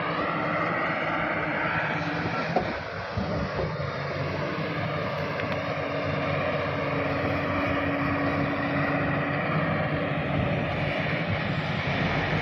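Heavy diesel construction machinery, a tracked excavator, running steadily with a constant engine drone, mixed with wind buffeting the microphone.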